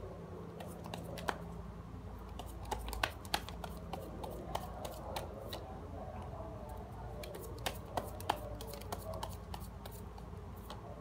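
Tarot cards being handled by hand and laid on a table: scattered sharp clicks and taps of the cards, with a cluster about three seconds in and another around eight seconds.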